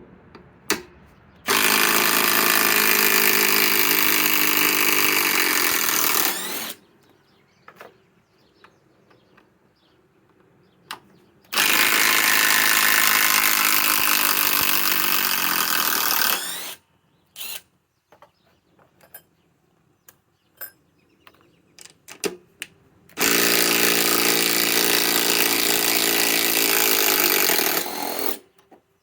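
Master Force brushless impact driver hammering out lag screws in three runs of about five seconds each. Between runs there are short clicks and knocks.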